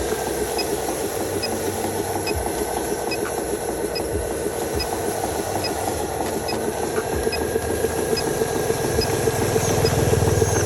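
Radio-controlled model truck's drive running steadily: a buzzing mechanical hum with a fast rattle. It grows louder and deeper over the last few seconds.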